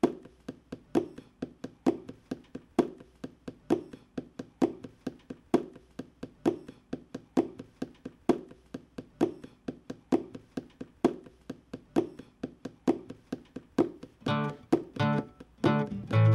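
Background music: a steady picked pattern of plucked notes, with a strong note about once a second and lighter ones between. Near the end, fuller chords with a bass line come in and get louder.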